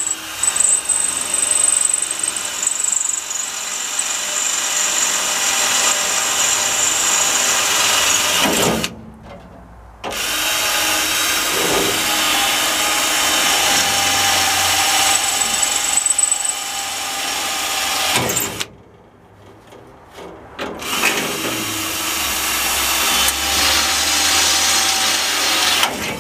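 Electric drill cutting out factory spot welds in a car body's sheet steel, running in three long stretches that stop briefly about nine seconds in and again about eighteen seconds in.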